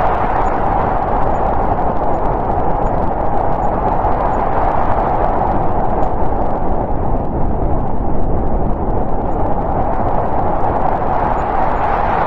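Snowstorm wind blowing steadily, a continuous rushing noise that swells slightly and eases again.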